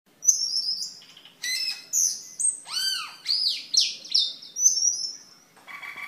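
Asian glossy starling (cucak keling) singing: a run of clear whistled notes in short phrases, many sliding sharply up or down or arching in pitch. Near the end a lower, buzzier call begins.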